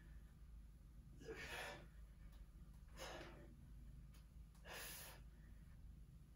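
A man breathing hard under exertion in a plank-and-reach exercise set: three short, breathy exhales about one and a half seconds apart, over a faint low room hum.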